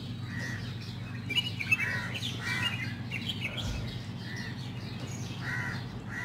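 Birds at dawn: crows cawing every second or so, with quicker chirps from smaller birds for a couple of seconds early in the stretch, over a steady low hum.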